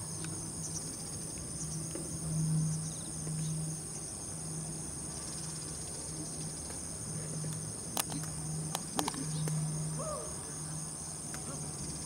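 A steady, high-pitched chorus of crickets and other insects trilling, over a low hum that pulses on and off about once a second. A few sharp knocks come about two-thirds of the way in.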